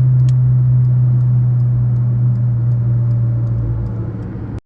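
Inside the cabin of a Fiat Uno Way at highway speed: a loud, steady low hum with a fainter higher tone over it, cutting off suddenly near the end. This is the in-gear noise the owner hears above 100 km/h, which he says stops when the clutch is pressed and which he cannot identify.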